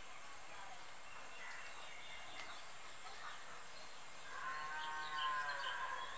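Faint background ambience: a steady high hiss with scattered short chirps, and about four seconds in a drawn-out, wavering animal-like call lasting under two seconds.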